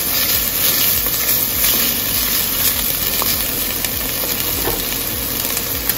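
Diced onion, fresh turmeric and ginger sizzling steadily in ghee in a pot while being stirred with a spatula.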